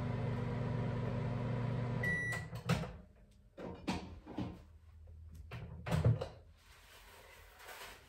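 Microwave oven humming as it runs a short reheat of a bead-filled heating pad. The hum stops about two seconds in with a short high beep. A few clunks and knocks follow as the door is opened and the heat pack is taken out.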